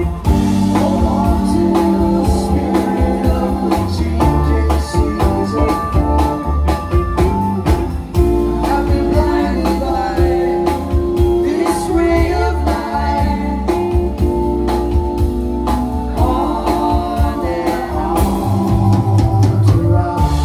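A live band playing: drum kit, electric bass, electric guitar and electric keyboard, with a sung vocal line over them.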